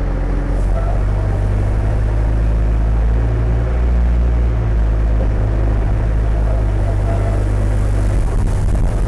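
Skid steer loader engine running steadily with a deep, even hum.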